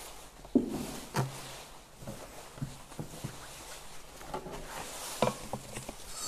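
Irregular light knocks and clinks, about one a second, some ringing briefly: metal and glass vessels being handled and set down on a hard surface. This is typical of the communion vessels being cleared at the altar after communion.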